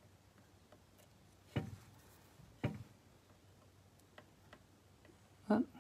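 Light taps and clicks of small craft items and tools being handled and set down on a tabletop. Three sharper knocks stand out, the last, near the end, the loudest, with a few faint ticks between them.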